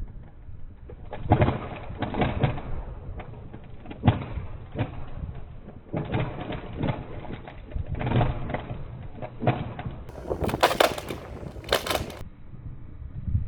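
Wooden branches being snapped and broken: repeated sharp cracks and splintering snaps in clusters, with a louder, brighter run of snapping about ten to twelve seconds in.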